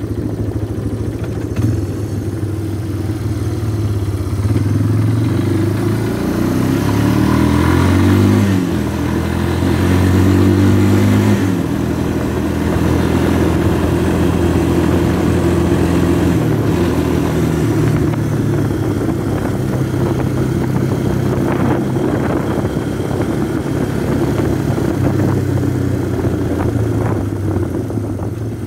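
Yamaha ATV (four-wheeler) engine running while riding. The engine speed rises and falls a few times in the first half, then holds fairly steady.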